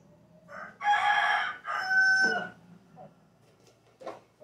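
A rooster crowing once, a pitched call about two seconds long starting about half a second in, followed by a couple of faint knocks.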